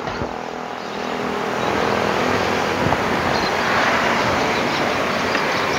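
Road traffic going by on the street, a steady wash of engine and tyre noise that swells about a second in.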